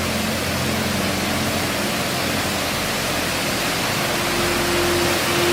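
Steady rush of water from the falls and creek, an even hiss with no breaks. A faint held musical note enters near the end.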